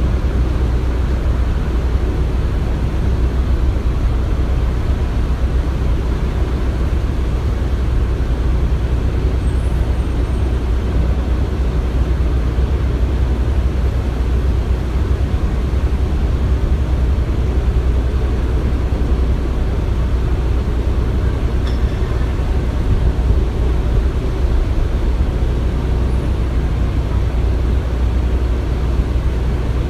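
Construction site ambience: a steady, deep rumble like heavy machinery running, with no distinct knocks or bangs.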